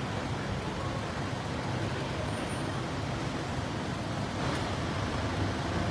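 Steady low rumble and hiss of an underground car park's background noise, with one brief click about four and a half seconds in.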